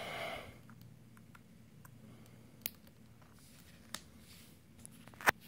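A few small, sharp plastic clicks as the LED light kit's plug is worked into the RC buggy's receiver box, the sharpest one near the end.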